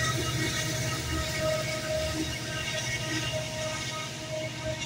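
BNSF diesel locomotive moving away along the track: a low, throbbing engine rumble with steady tones over it, slowly fading.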